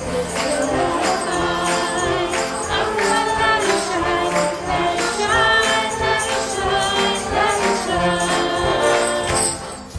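Choral worship music: a choir singing with instrumental backing and a tambourine keeping a steady beat.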